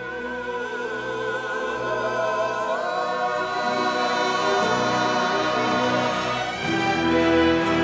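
Orchestral Western film-score music: a high wavering held note over sustained chords, then the texture fills out and swells near the end.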